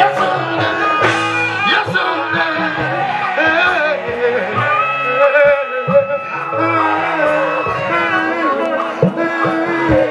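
Live gospel worship music: a band playing, with voices singing.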